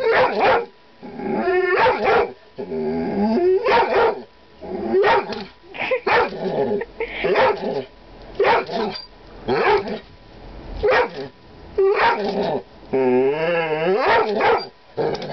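Young dog barking repeatedly at his own reflection in a mirror, about one bark a second. A few calls are drawn out with a wavering pitch, the longest near the end.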